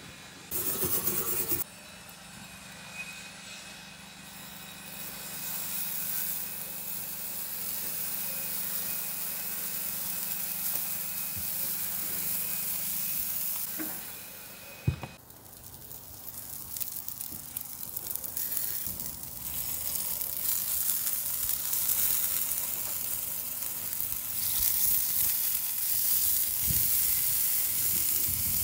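Bacon-wrapped burger onion rings sizzling on the grate of a charcoal kamado grill, a steady hiss. A single sharp click about fifteen seconds in.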